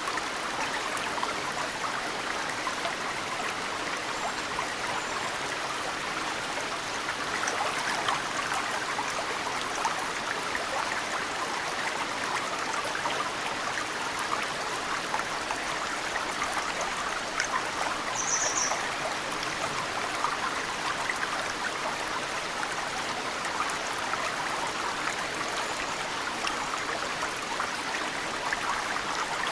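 Mountain stream flowing steadily, with snowmelt dripping off cedar roots into the water as many small, scattered drips. A brief high bird chirp sounds about two-thirds of the way through.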